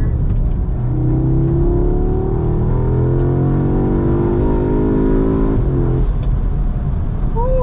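Audi S3's turbocharged 2.0-litre four-cylinder, fitted with a Racingline turbo inlet and intake hose, heard from inside the cabin under hard acceleration. The engine note climbs steadily in pitch for about four seconds, then falls away as the throttle is lifted, over a steady road and tyre rumble.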